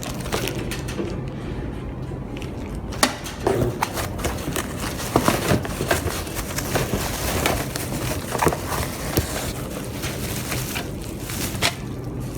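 Irregular clicks and knocks of handling and installation work, over a steady background hum.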